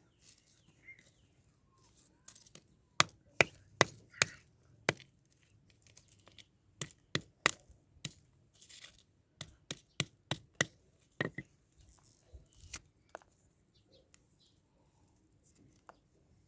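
Irregular series of sharp knocks and cracks, about sixteen in clusters of three to five, with quieter stretches between.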